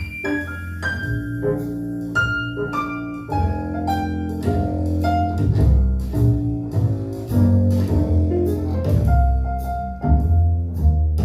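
Music playing through a stereo pair of small speakers: an instrumental passage with a plucked double bass line, bowed strings and piano.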